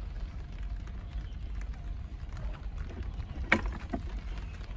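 Low rumble of handling and wind on a handheld microphone, with a few light knocks. The sharpest comes about three and a half seconds in, as a hand knocks against old wooden planks on wet concrete.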